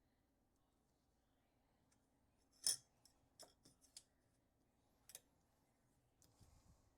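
Small metal lock parts handled and set down: one sharp metallic click about three seconds in, a few lighter clicks just after, another click a little later, and a brief soft rustle near the end.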